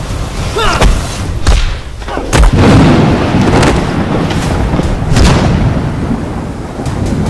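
Film fight sound effects: a string of sharp punch and strike hits, about one a second, with a short whoosh near the start and a heavier boom with a low rumble about two and a half seconds in.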